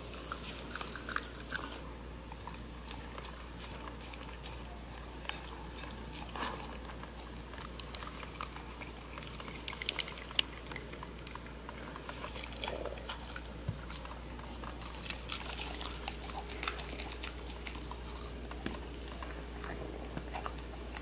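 A Bedlington terrier biting and chewing a soft dog cake close to the microphone: irregular wet clicks and crunches of its mouth and teeth, with a few sharper snaps.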